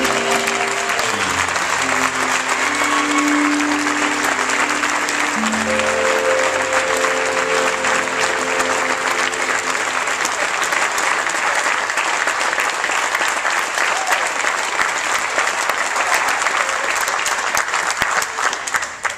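An audience applauding steadily as the last held notes of a dance song play out and end about halfway through. The applause stops just before the end.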